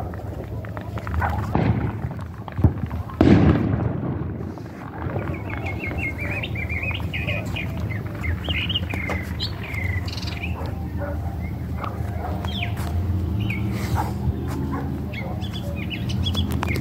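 Fireworks going off a few times in the first seconds, the loudest bang about three seconds in, followed by runs of short, quick bird chirps over a steady low rumble.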